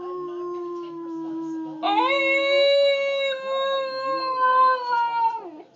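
Husky howling: a long, slowly falling howl, then a higher howl that begins about two seconds in, overlapping the end of the first, holds steady for about three and a half seconds and drops away near the end.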